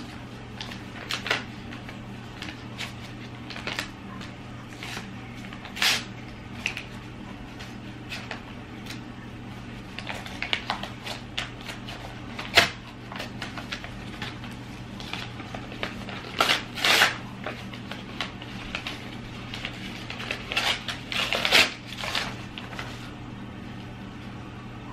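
Paper envelope and greeting card being handled and opened: irregular rustling and crinkling with small clicks, in scattered bursts over a steady low hum.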